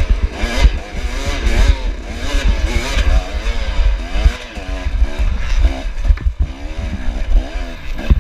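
KTM dirt bike engine revving up and down over and over as the rider works the throttle on a rough woods trail, with low rumble and short thumps underneath.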